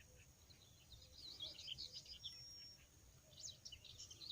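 Songbirds singing faintly: quick high chirping phrases starting about a second in, a short steady whistle in the middle, and another run of chirps after a pause, over faint outdoor background noise.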